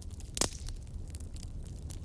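Wood campfire crackling: scattered sharp pops and snaps over a low steady rumble of the flames, with one loud pop about half a second in.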